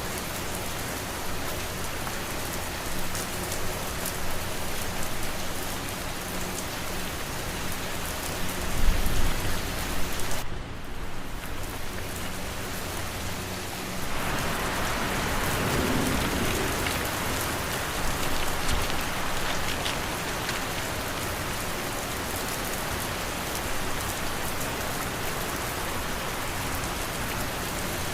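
Steady rain falling, with a faint steady low fan hum beneath it. About a third of the way in there is a brief low rumble, and just before halfway the rain swells brighter and louder for a few seconds before settling back.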